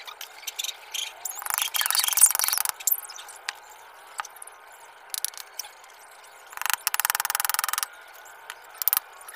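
Hand work on a wooden gate frame: two loud rasping scrapes, each about a second long and some four seconds apart, with scattered light knocks and clicks in between.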